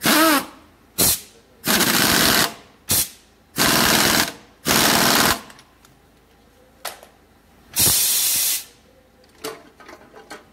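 Pneumatic impact wrench rattling in about seven short bursts of varying length, tightening the bolts as a front strut with its new top mount is fitted.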